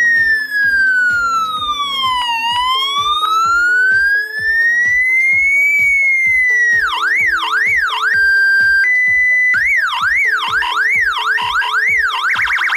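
Electronic siren tone from an Arduino Nano siren circuit. It starts as a slow wail, falling and then rising over about six seconds. It then switches to fast yelping sweeps, broken about two thirds of the way in by two short held notes, the second higher than the first. Background music with a steady beat plays underneath.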